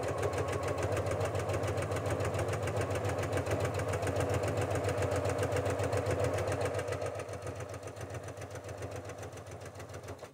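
Janome sewing machine with a walking foot running a straight stitch through layers of cotton flannel, an even rapid clatter of needle strokes. It eases off slightly in the last few seconds and stops at the end as she nears a corner to pivot.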